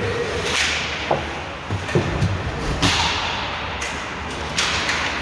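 Ice hockey play in a rink: three short hissing scrapes, about a second and a half apart, and two sharp knocks near the start. These are typical of skates carving the ice and a stick or puck striking.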